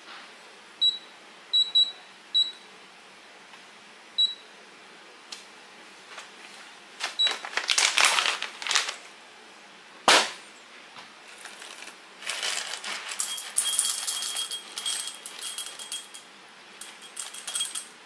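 Espresso tools being handled at the counter: a few light metallic clinks early on, one sharp knock about ten seconds in, and a run of scraping and rattling near the end.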